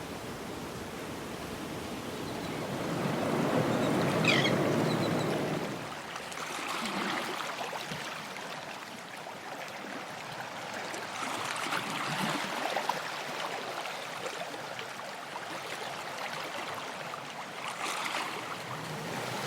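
Ocean waves washing in and out on a shore as a steady rushing noise. A bigger wave surges in about three to six seconds in, and smaller washes follow every few seconds. A brief high chirp sounds about four seconds in.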